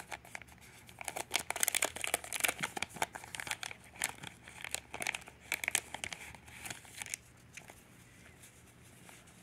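Paper rustling and crinkling as small stacks of craft papers are handled and lifted out of a cardboard box. It is busy from about a second in until about seven seconds in, then dies down to faint handling.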